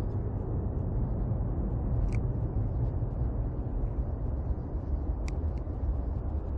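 Low, steady rumble of an Airbus A380 airliner's four jet engines on final approach.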